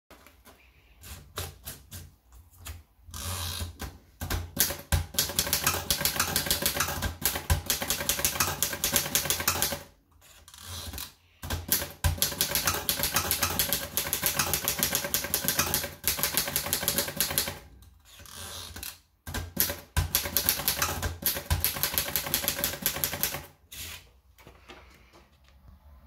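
Erika model 5 portable typewriter being typed on: keys and typebars striking the platen in quick clicks, in three runs of typing with short pauses between them.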